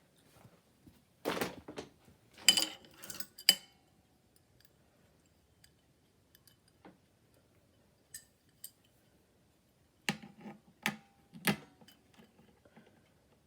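Handling noise: small hard objects clattering and knocking, in two short bursts of clicks, one about a second in and another about ten seconds in. No steady ring: the fire alarm bell is not sounding.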